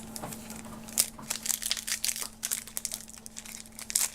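Trading card pack wrapper being torn open and crinkled: a run of irregular, sharp crackles.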